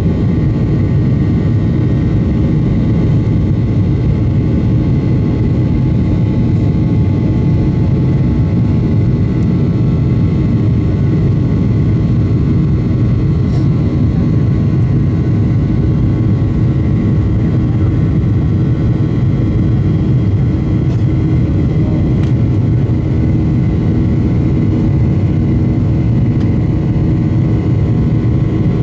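Steady cabin noise inside a Boeing 737-800 climbing out after takeoff, heard from a window seat over the wing: its CFM56-7B turbofan engines and the rushing air make a loud low rumble with a few steady humming tones above it.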